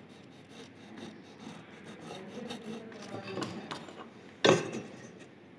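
A ballpoint pen scratching along a wooden batten as a marking line is drawn, with light handling noise and small ticks. About four and a half seconds in there is a single sharp knock on the bench.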